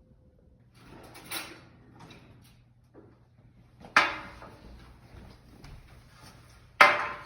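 Kitchen clatter: a soft rustle, then two sharp knocks about three seconds apart, each loudest at the start and fading quickly, like cupboard doors or drawers being shut.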